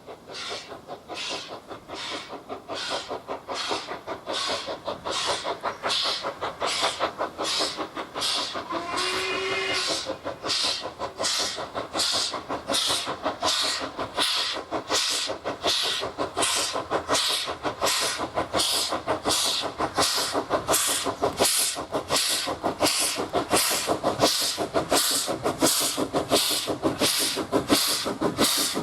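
Ivatt 2MT 2-6-2T steam tank locomotive working hard on a steep climb, its chimney exhaust beating in a steady rhythm of about one and a half beats a second and growing louder as it approaches. A short whistle sounds about nine seconds in.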